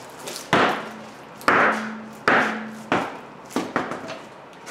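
A rubber mallet strikes a rusted-on steel wheel three hard blows, about a second apart, to break it free from the hub; the last two blows leave a brief ring. A few lighter knocks follow as the loosened wheel comes off.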